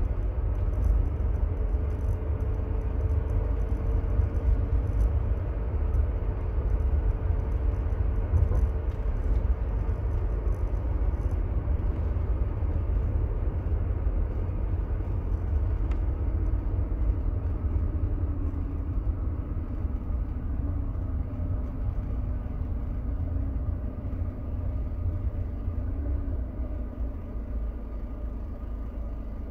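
A 1993 Mercedes W124 220CE coupe driving, with its 2.2-litre four-cylinder engine and a steady low road rumble. The engine note eases slowly lower in pitch over the second half as the car slows.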